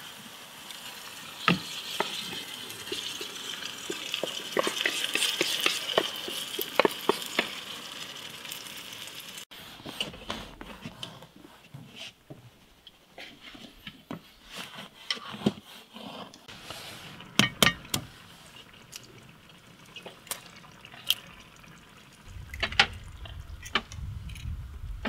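Camp cooking sounds: a steady hiss like food frying, with light clicks, for the first nine seconds or so. Then it changes abruptly to scattered clinks and knocks of utensils and dishes.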